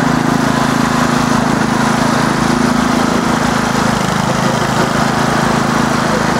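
An engine running steadily, a constant droning hum.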